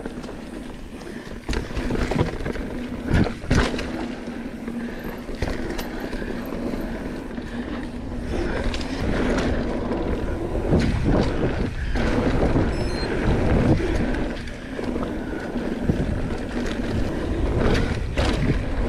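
Mountain bike descending a dirt trail: tyres rumbling over dirt and rocks, with the bike rattling and sharp knocks from bumps, heaviest about a second and a half in and again around three to four seconds in.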